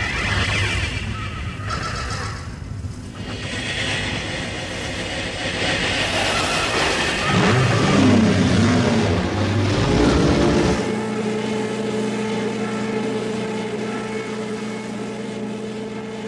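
Cartoon race-car engine sound effect running at speed. Its pitch slides up and down about halfway through, then settles into a steady drone.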